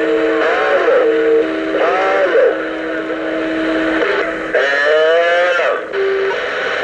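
CB radio receiving a keyed-up station over static: a hiss with steady whistling tones and warbling, sliding tones over it, ending suddenly near the end.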